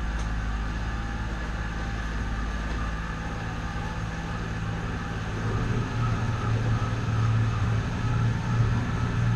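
Glass-bottom tour boat's engine running with a steady low hum, growing louder about halfway through.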